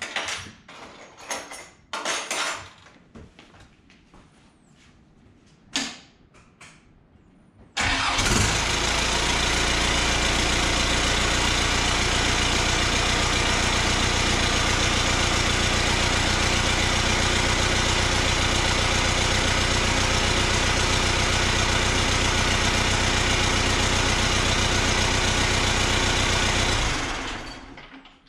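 A few scattered knocks and clicks, then a Cummins 4BT 3.9 L turbo-diesel four-cylinder starts suddenly about eight seconds in. It idles steadily for about twenty seconds, its idle set a touch high ("a little lower will be perfect"). It winds down as it is shut off near the end.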